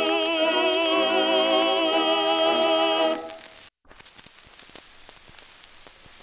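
Singing voice holding the final note of a slow song with a wavering vibrato, ending about three seconds in. Then only a faint crackling hiss with scattered small clicks.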